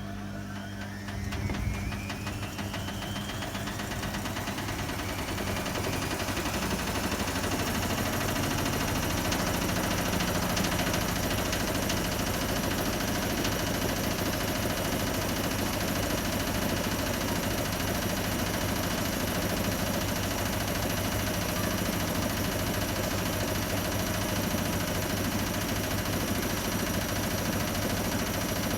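Hotpoint WMA30 washing machine starting a spin with an unbalanced load: the motor whine rises in pitch over the first several seconds as the drum speeds up, then runs steady at speed with a low hum.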